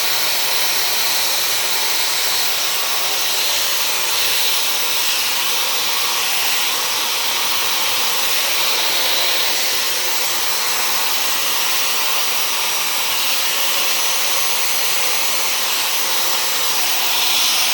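Dyson hair dryer with a diffuser attachment blowing steadily, a constant airy whoosh with no change in speed.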